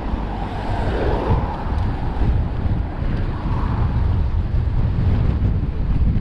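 Wind buffeting the microphone of a bicycle-mounted camera while riding along a road: a steady low rumble, with a brief swell in the middle range about a second in and again around three and a half seconds.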